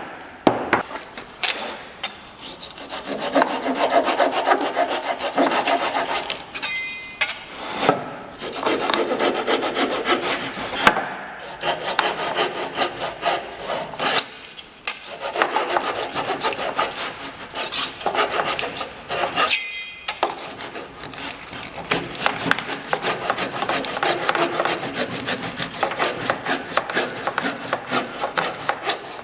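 A hand tool working white oak with rapid back-and-forth rubbing strokes, in several bursts with short pauses between them.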